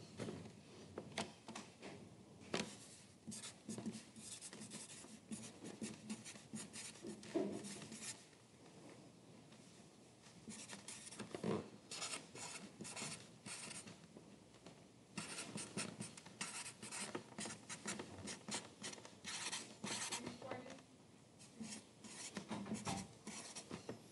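Pencil writing on paper: quick scratchy strokes in runs with short pauses between them.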